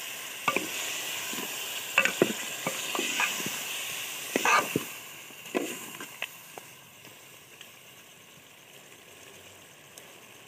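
Mutton and masala sizzling in a metal pot as a splash of water hits the hot browned meat, with a metal ladle clinking and scraping against the pot as it is stirred. The sizzle dies down over the second half and the clinks stop about six seconds in.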